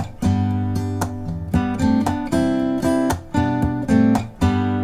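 Background music of strummed acoustic guitar playing a rhythmic chord pattern. The last chord, struck near the end, is left ringing.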